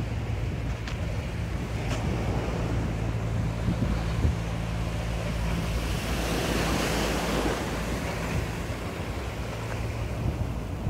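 Sea waves washing on the shore, with wind buffeting the phone's microphone; the surf hiss swells up about halfway through.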